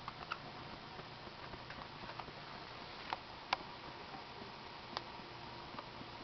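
Quiet room tone with a few faint, scattered soft taps or clicks, the loudest about three and a half seconds in.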